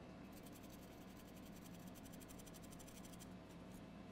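Near silence: room tone, with a faint, fast scratching patter for about three seconds.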